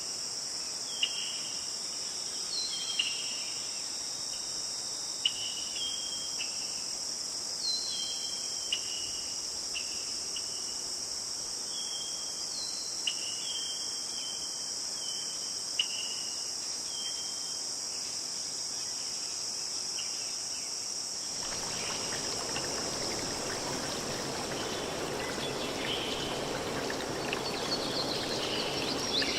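Steady high-pitched chorus of crickets and other insects, with short falling bird chirps repeating about once a second. About two-thirds of the way through, the rushing sound of a stream comes in abruptly and the chirps fade.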